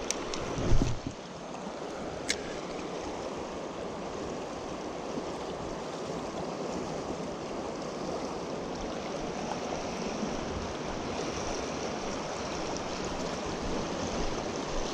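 Creek current rushing steadily over rocks, with a loud thump about a second in and a single sharp click a second or so later.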